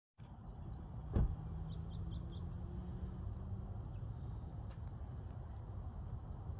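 Wind rumbling on the microphone, with a single thump about a second in. A bird gives a quick run of short, high chirps just after.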